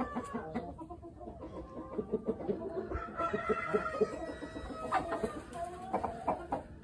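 Chickens clucking in quick, short notes. A rooster's crow trails off right at the start.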